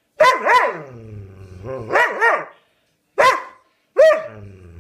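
Doberman "talking": a run of about six short, pitched barks and yowls that arch up and down in pitch, two near the start, two around two seconds in, then one each near three and four seconds, with low grumbling in between.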